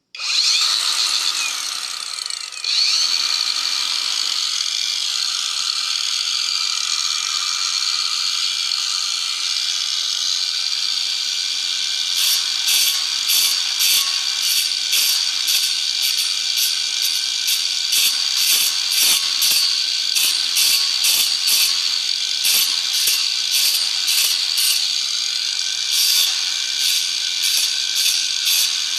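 Small electric power tool switched on and running with a steady high whine, dipping briefly under load a couple of seconds in. From about halfway through, a regular rasping pulse about twice a second rides over the whine as the tool works the wood.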